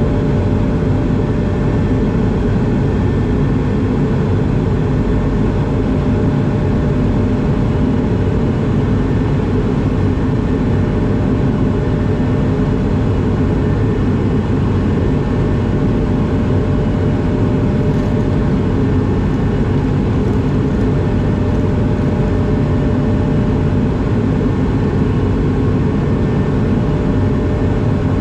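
Steady in-cabin drone of an Airbus A220 in flight, its Pratt & Whitney PW1500G geared turbofan engines running evenly, heard from a seat beside the wing. A faint steady hum runs through the noise.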